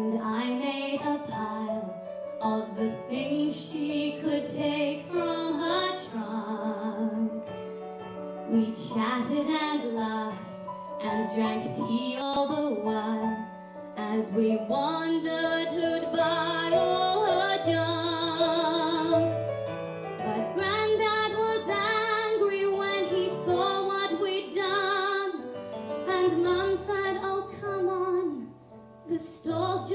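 A woman singing a musical-theatre song solo into a microphone, with vibrato on the held notes, over an instrumental accompaniment.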